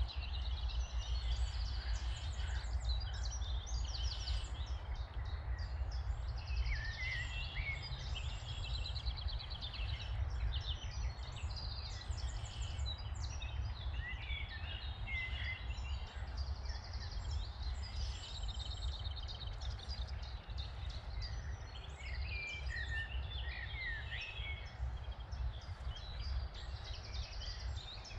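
Low, gusting rumble of wind on the microphone, with several songbirds chirping and trilling throughout.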